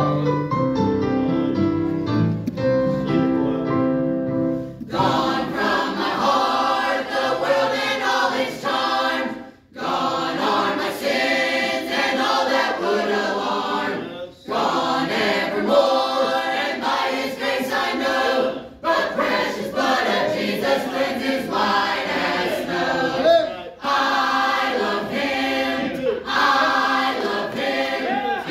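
Church choir of men, women and children singing a gospel hymn in parts, after a short piano introduction of about five seconds. The singing comes in phrases, with brief breaks between them every four or five seconds.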